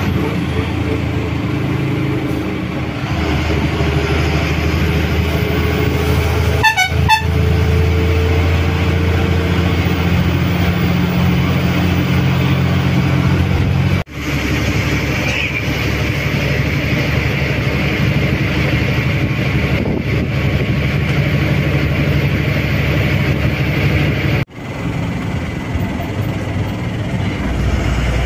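Ashok Leyland BS-6 bus's diesel engine running steadily, with a vehicle horn sounding briefly, wavering in pitch, about seven seconds in. The sound drops out briefly twice, at about 14 and 24 seconds.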